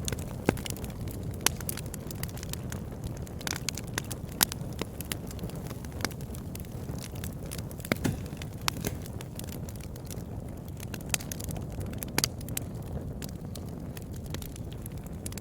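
Wood fire crackling: sharp, irregular pops and snaps over a steady low rumble of the burning.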